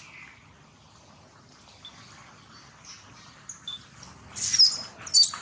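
Infant long-tailed macaque screaming in distress as its mother grabs and pulls it by the tail: two loud, shrill, high-pitched screams close together near the end, after a few faint short squeaks.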